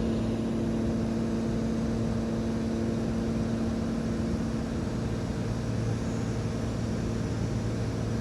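Cessna 182's piston engine and propeller droning steadily in flight, heard from inside the cockpit.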